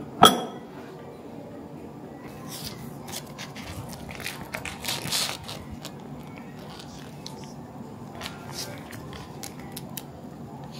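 A ceramic bowl set down on a wooden table with one sharp clack and a brief ring, then crinkling plastic as a sealed pack of dumpling wrappers is opened and handled, loudest a few seconds in and fading to small rustles.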